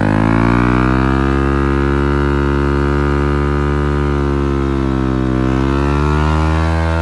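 Yamaha sport motorcycle engine held at high revs, the pitch steady apart from a slight dip about five seconds in before it climbs again. The rear wheel is spinning in the dry dirt, kicking up dust.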